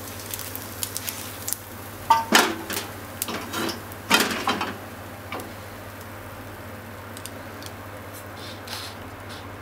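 Chopsticks clicking and scraping against a nonstick frying pan and a ceramic bowl as pieces of fried tofu are pushed out of the pan, with sharper clatters about two and four seconds in as the pan is set back down on the gas stove grate, then a few light taps.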